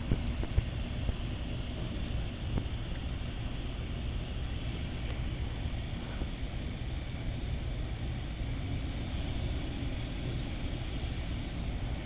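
Steady low rumble with a faint hiss, with a few faint ticks in the first second.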